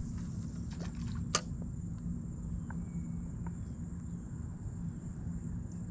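Steady high insect drone over a low, even rumble, with one sharp click about a second and a half in and a few faint ticks after it.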